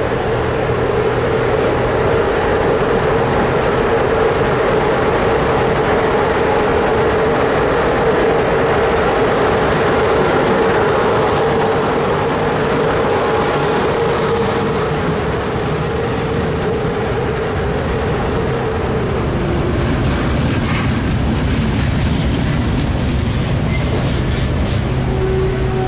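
Locomotive-hauled passenger train rolling past close by, a loud steady rumble of wheels on rail. A steady whine runs through it and fades out about 19 seconds in.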